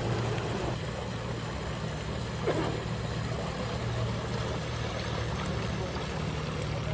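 Boat engine running with a steady low hum, heard from on board a boat under way. A short, sharp sound stands out about two and a half seconds in.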